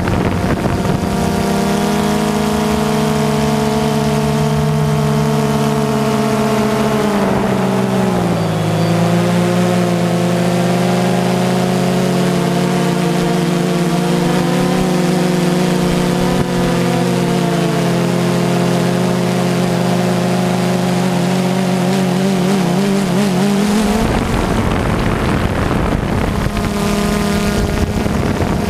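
DJI Phantom 2 quadcopter's motors and propellers running, a steady multi-toned whine whose pitch wavers, dips about eight seconds in and shifts again near the end.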